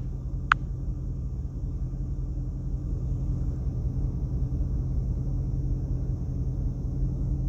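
Steady low rumble and hum of background noise, with two short sharp clicks in the first second.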